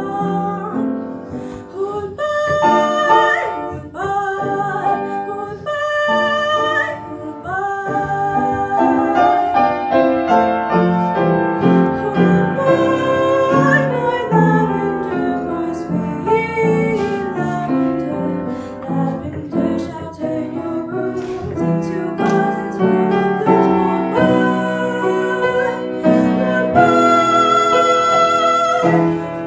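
A young girl singing a solo to piano accompaniment, holding long notes with vibrato over the piano's chords.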